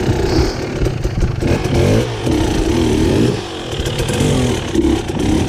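Off-road dirt bike engine revving up and down as the bike climbs a rocky waterfall, the pitch rising and falling with the throttle and easing off briefly in the middle.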